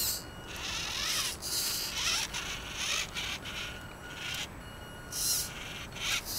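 WLToys 18428 1:18 RC rock crawler's electric motor and gear train whining in short, repeated bursts as the throttle is blipped on and off while it crawls over grass.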